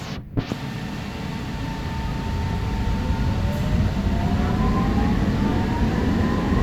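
Alstom Citadis Spirit light-rail train pulling away from the station, heard from inside the car: a knock early on, then a rumble that grows louder as the train speeds up, with the traction motors whining and rising in pitch.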